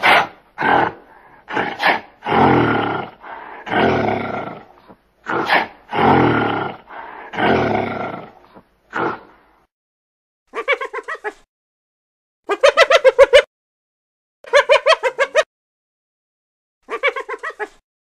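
A gorilla giving a string of short, rough calls, about eight in the first half. Then spotted hyenas giggling: four bouts of rapid, staccato pulsed calls, each about a second long.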